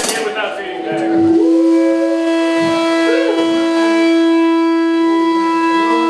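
A single steady held note, rich in overtones, comes in about a second in and holds at an even pitch and level from the band's amplified gear during a sound check.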